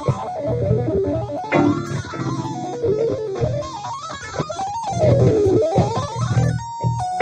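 Electric guitar playing fast legato runs, quick streams of hammered-on and pulled-off notes climbing and falling, over a steady low bass backing. Near the end it settles onto a held note.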